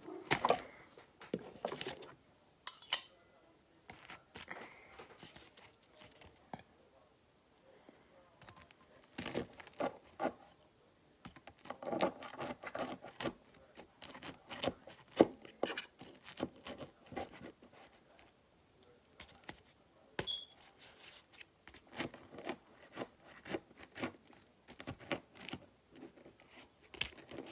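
Cutlery clinking and scraping on a plate, a long run of small irregular clicks, taps and scrapes as waffles are buttered and cut.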